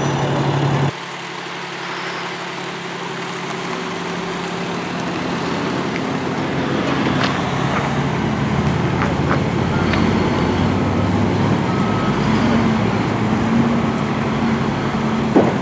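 Heavy trucks on a road: an idling truck engine stops abruptly about a second in. Then engine and tyre noise from passing trucks, including the rig hauling a bulldozer on a lowboy trailer, builds steadily louder as they approach.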